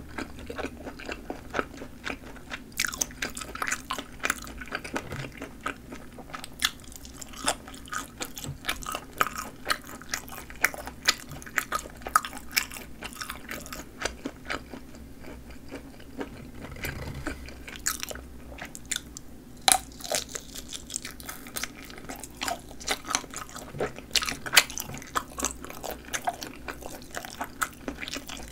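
Close-miked chewing and biting of sausages with snappy casings: many sharp, wet clicks and crunches from the mouth, over a faint steady low hum.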